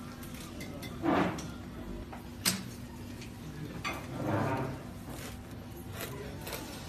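A knife and fork cutting into a crusty baked bread dome: a few short scraping crunches and sharp clicks of metal cutlery, the sharpest about two and a half seconds in, over a steady low hum.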